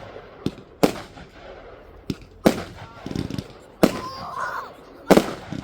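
Firework reports: four loud sharp bangs about a second and a half apart, each echoing briefly, with a couple of smaller pops between them.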